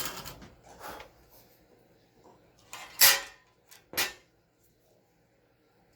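Several short scraping and clacking handling noises, the loudest about three seconds in, typical of wires and plastic parts being worked by hand during car radio wiring.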